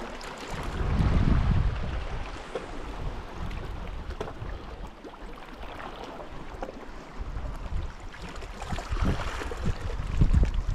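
Wind buffeting the microphone over small waves washing against the rocks, with stronger gusts about a second in and near the end.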